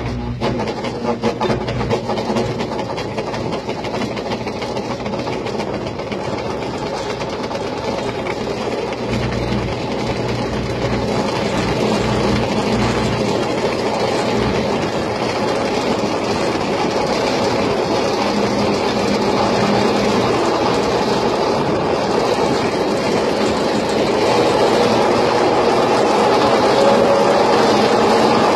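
Scrambler carnival ride running empty as it starts up and spins faster, a steady mechanical running noise that grows gradually louder as it gains speed.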